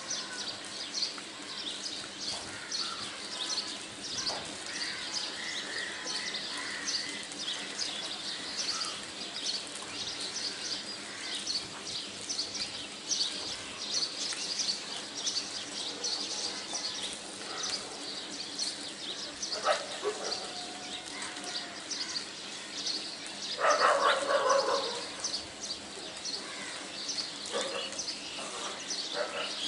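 Tissue paper crinkling and rustling as its folded layers are pulled apart and fluffed by hand: a dense run of small, high crackles, with a louder rustle about 24 seconds in.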